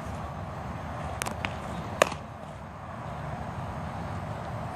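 A baseball smacking into a leather glove with a sharp pop about two seconds in: the pitcher catching the return throw. A couple of lighter clicks come just before it, over a steady outdoor background hiss.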